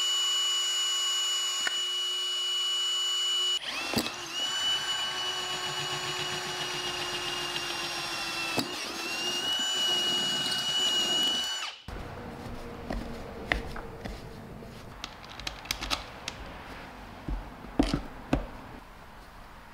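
Ridgid cordless drill running with a steady high whine while boring holes through a fabric tool bag, the sound changing abruptly about 4 and 9 seconds in and stopping suddenly about 12 seconds in. After that, light clicks and knocks as a pole mount is fitted to the bag's handle.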